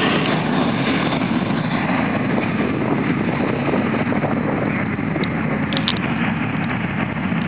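Boeing 737-800 taking off, its CFM56-7B turbofan engines at takeoff power giving a loud, steady jet noise as the airliner speeds down the runway.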